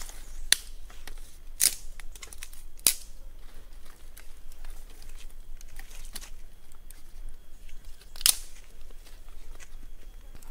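Dry sticks and twigs clicking and cracking as they are handled and stacked onto a small, newly lit fire, with four loud sharp cracks among many lighter clicks.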